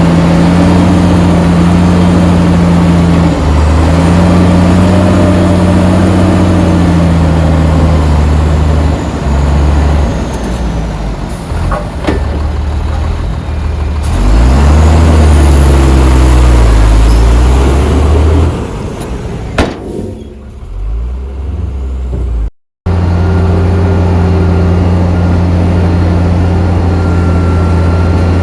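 Heavy diesel engine of earthmoving machinery running loud, its pitch rising and falling several times as it revs under load. The sound drops away briefly about two-thirds through, then the engine runs on steadily.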